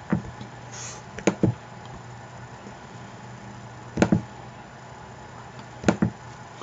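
Computer mouse clicks: a few sharp, separate clicks, some in quick pairs, spaced a second or two apart, as text is selected and copied.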